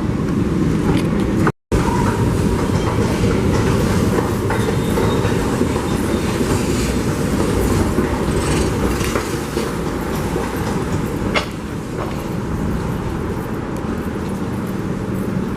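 New York subway 7 train of R188 cars running on the rails, a steady rumble with wheels clattering over the track. There is a momentary complete cut-out about a second and a half in.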